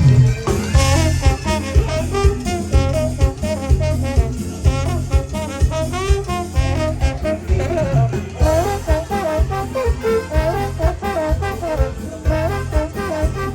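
Upbeat Latin tropical band music: a brass section plays a bending melodic line over a steady pulsing bass and percussion beat.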